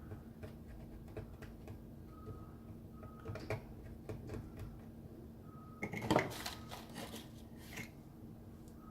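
GERUI GR-12-008 electric cigarette rolling machine running with a steady hum, its mechanism clicking and clattering, with the busiest clatter about six seconds in. Short high beeps recur in pairs.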